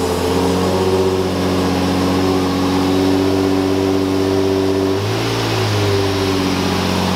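Nissan 350Z's 3.5-litre V6 running at a steady idle, with a brief change in engine speed about five seconds in.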